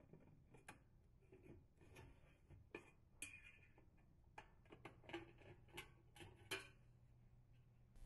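Faint, scattered clicks and light taps of a dishwasher's stainless-steel lower access panel being handled and pulled free.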